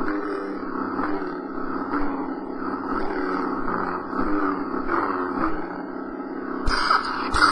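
Lightsaber sound font played by a Prizm V5 soundboard: a steady electric hum that swells and falls as the blade is swung, then two sudden bright clash hits near the end.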